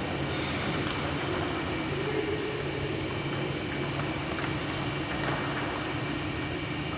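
Steady rushing hum of a running pedestal fan, with a few faint short clicks of a table tennis ball being hit.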